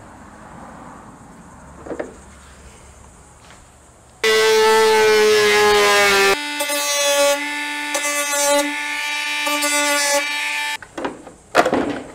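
Handheld rotary tool starting up with a high whine, then running at a lower pitch as it cuts a round hole through a cooler lid. It stops about eleven seconds in, followed by a few knocks and scrapes.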